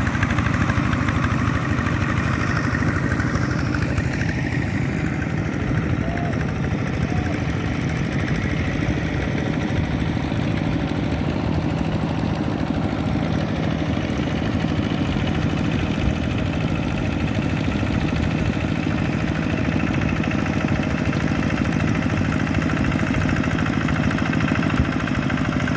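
Single-cylinder diesel engine of a two-wheel walking tractor running steadily under load as it drags a levelling board through a flooded rice paddy.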